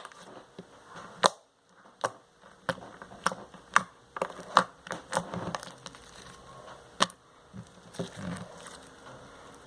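Slime being squeezed and worked by hand, making irregular sharp little pops and clicks as air trapped in it bursts, with soft squishing between.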